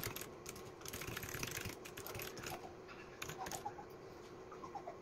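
Typing on a new Royal Kludge mechanical keyboard: quick, irregular runs of key clicks, busiest about a second in and again past three seconds.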